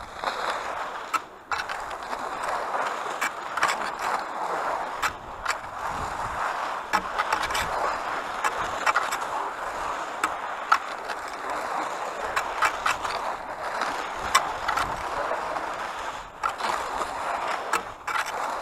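Fischer cross-country skis gliding and scraping along a groomed snow track: a steady rushing scrape with frequent sharp clicks and knocks.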